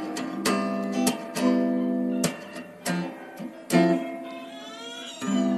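Background music: acoustic guitar strumming chords, with a sharp strum stroke every second or so and the chords ringing between them.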